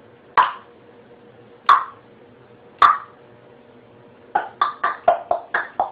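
Loud tongue clicks: the tongue pressed to the roof of the mouth and snapped down into a hollow pop. Three single pops about a second apart, then a quick run of clicks at about five a second starting about two-thirds of the way in.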